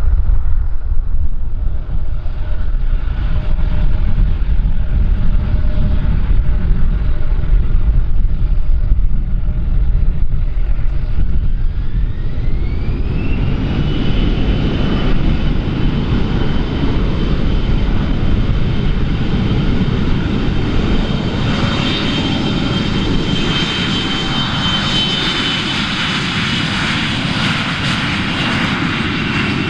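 Airliner engines spooling up. A low rumble gives way, about halfway through, to a whine that rises over a couple of seconds and then holds steady, while the engine noise builds and stays strong, typical of engines going to takeoff thrust.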